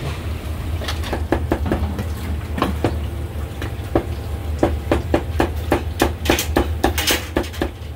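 Cleaver chopping through braised beef brisket on a thick wooden chopping block: a quick, uneven run of knocks, several a second, starting about a second in, over a steady low hum.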